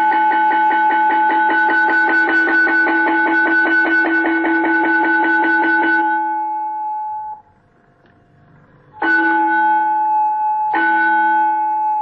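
Automatic school bell system playing its 'traditional' electric bell sound: a rapid ringing of many strikes a second that stops about six seconds in and rings away. After a short pause come two short chime tones about two seconds apart, the lead-in to an announcement.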